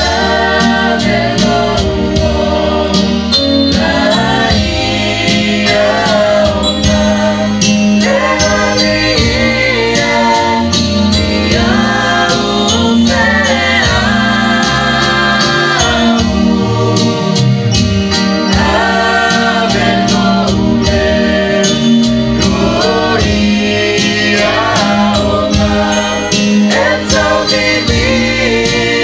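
A small praise team singing a gospel hymn together through microphones, over amplified accompaniment with a steady beat.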